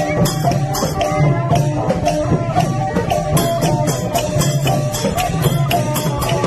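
Thai street procession band of drums and small hand cymbals playing a lively, steady beat, with a held melody line under the cymbal strokes.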